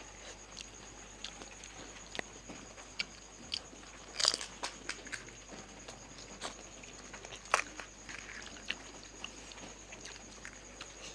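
Crisp fuchka (pani puri) shells crunching as they are bitten and chewed, with scattered small clicks and mouth sounds. There are two louder crunches, one about four seconds in and another about three seconds later.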